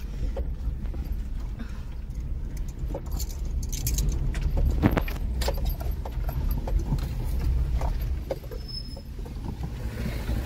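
Car driving slowly over a rutted dirt track, heard from inside the cabin: a steady low rumble of engine and tyres, with scattered rattles and knocks as it goes over the bumps.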